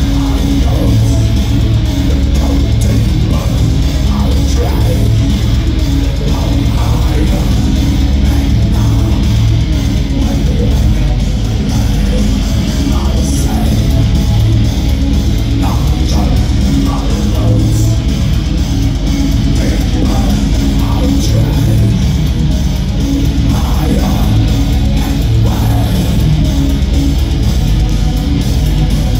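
A live heavy metal band playing loudly: distorted electric guitars over a dense, heavy low end, going on without a break.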